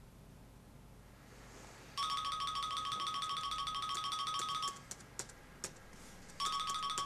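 Mobile phone ringtone: a fast repeating electronic melody that rings in stretches, quiet for the first two seconds, then ringing for about three seconds, pausing, and starting again near the end.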